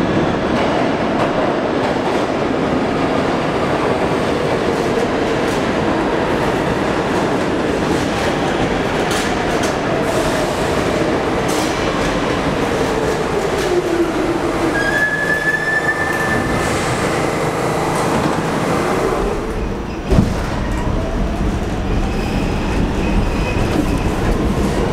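R46 subway train pulling into the station and braking: a steady rumble of steel wheels on rail with a whine that falls in pitch as it slows, and a short high squeal about 15 seconds in. About 20 seconds in there is a sudden thump, and after it a lower, heavier rumble.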